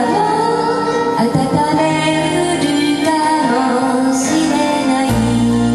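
A woman singing solo to a karaoke backing track, her voice gliding between held notes over the accompaniment; a deep bass note comes in near the end.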